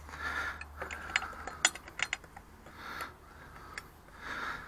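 Small metal clicks and clinks, scattered and irregular, from a carburetor lock nut and a small socket tool being handled on an outboard motor, with breathing close to the mic.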